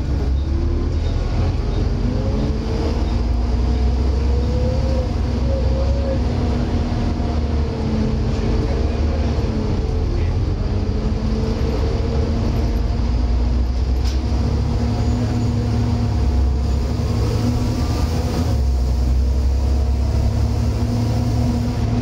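Volvo B7TL double-decker bus running under way, heard from the upper deck: a steady low diesel rumble with whines that rise and fall in pitch, the 'hoover' whine and the ZF automatic gearbox.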